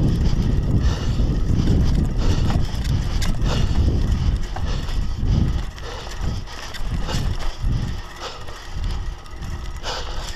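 Scott Scale hardtail mountain bike ridden fast on dirt singletrack: wind buffeting the action camera's microphone over tyre rumble, with the bike rattling and knocking over bumps. The wind rumble eases after about six seconds, leaving the knocks and rattles clearer.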